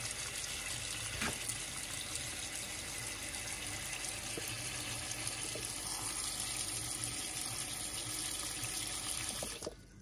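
Tap water running in a steady stream into a pot of halved corn cobs, filling it to cover the corn. The flow cuts off suddenly near the end.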